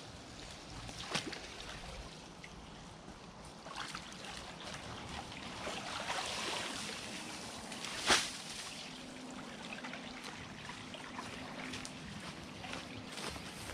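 Water trickling along a concrete irrigation ditch during ditch clearing, with scattered knocks and one sharp clack about eight seconds in.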